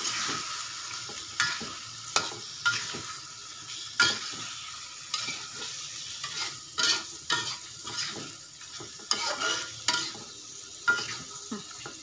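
Slotted metal spatula scraping and knocking against a wok at irregular moments as beef pieces are stirred through chili spice paste. A steady sizzle of the frying paste runs underneath.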